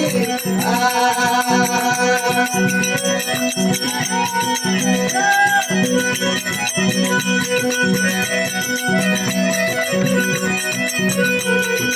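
Instrumental passage of a Rajasthani folk devotional bhajan: a melodic lead line gliding over a steady drone, with rattling hand percussion keeping a continuous rhythm.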